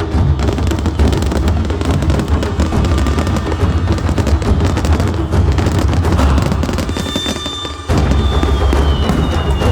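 Fireworks crackling and booming in a dense barrage over background music. The sound dips briefly about eight seconds in, then comes back full, with a thin whistle falling in pitch near the end.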